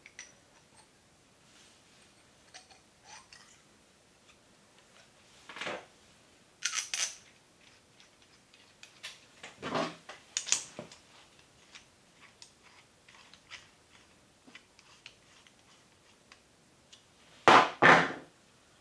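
Steel slitting saw blade and arbor being handled and assembled: small metal clicks and clinks as the blade is fitted and its retaining bolt is tightened with a hand driver, with two louder knocks close together near the end.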